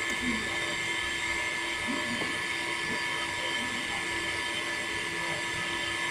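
A steady machine hum made of several fixed tones, unchanging in pitch and level, with a few faint soft scrapes over it.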